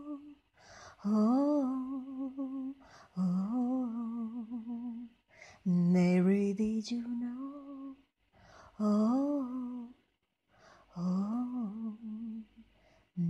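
A woman singing a wordless, hummed melody unaccompanied, in five phrases of about two seconds each with vibrato, taking a short breath between phrases.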